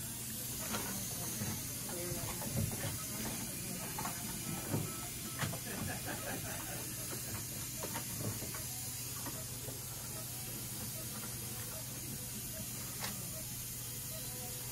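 Steady hiss and low hum of background noise, with scattered faint clicks and light knocks from handling, most of them in the first half.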